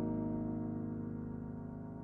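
Music: a single held piano-like keyboard chord, slowly fading away with no new note struck.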